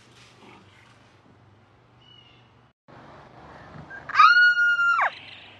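Raccoon giving one high-pitched cry, about a second long, about four seconds in: it rises sharply, holds steady, then falls away. Before it, only faint low background noise.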